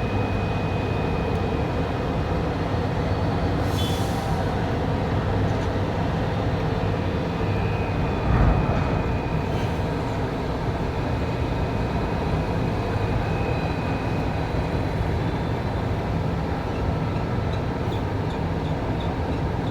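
Steady drone of heavy container-handling machinery at a container crane loading a cargo ship, with a short hiss about four seconds in and a single heavy thump about eight seconds in.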